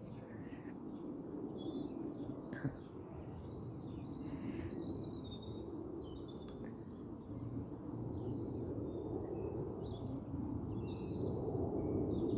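Dawn chorus of several small songbirds chirping and trilling, over a steady low rumble of distant traffic that grows a little louder in the second half.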